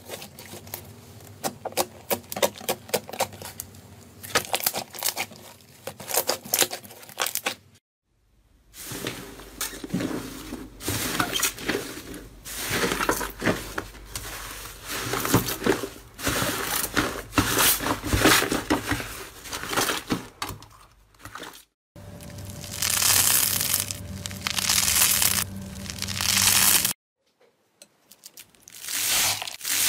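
Hands squishing, pressing and stretching slime: a dense run of sticky clicks, pops and crackles, broken by a few short silent gaps where the clips change. Near the end, a hand pressing into slime packed with foam beads gives a crunchy crackle.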